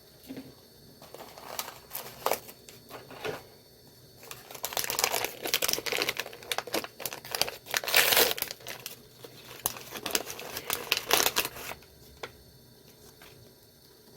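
Doll packaging being opened by hand: a few light clicks and rustles, then a long stretch of crinkling and tearing, loudest just past the middle, before it stops near the end.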